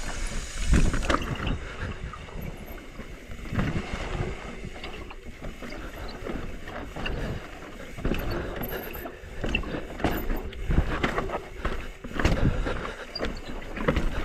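Mountain bike riding down steep, technical rock: irregular knocks and rattles from the tyres and bike hitting the rock, over a steady low rumble.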